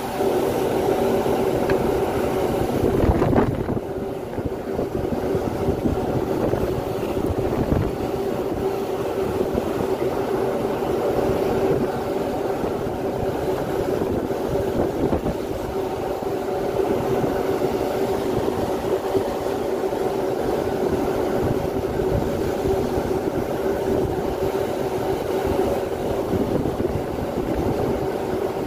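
Ship's engine and machinery hum under way, a steady low drone with a few held tones, mixed with wind rushing across the open deck. It is briefly louder about three seconds in.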